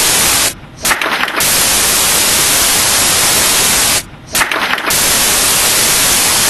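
Loud, steady hiss of static noise that cuts out twice for under half a second, each time coming back with a brief crackle, repeating about every three and a half seconds.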